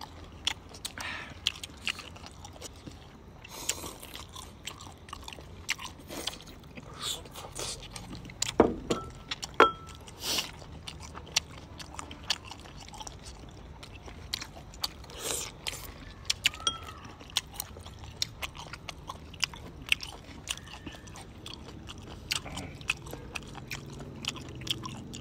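Close-up eating sounds: squid tentacles being bitten and chewed, with many irregular sharp clicks, the loudest a little before and after the 9-second mark.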